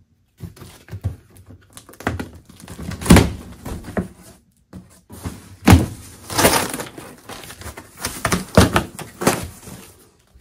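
Large corrugated cardboard shipping box being pulled open by hand: flaps wrenched back and torn, with a string of irregular cardboard thumps and rips, the loudest about 3 s in and several more in the second half.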